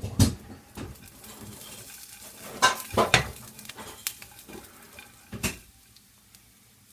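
Metal pan and lid clanking: a string of sharp knocks and rattles as the pan of freshly popped popcorn is handled, with a faint hiss between the knocks.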